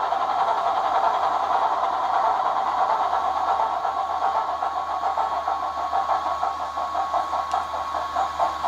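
Sutton's Loco Works Class 24 model locomotive's on-board sound decoder playing a Sulzer diesel engine through its small speaker: a steady burbling engine beat. The beat grows more distinct and a little quieter in the last few seconds.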